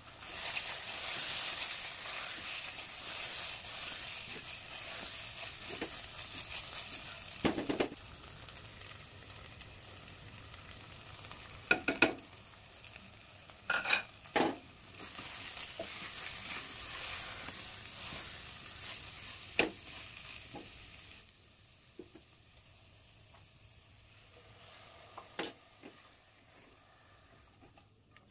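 Potatoes, pointed gourd and onions frying and sizzling in hot oil in a pressure cooker as they are stirred with a silicone spatula, with a few short knocks of the spatula against the pot. The sizzling drops away about three quarters of the way through.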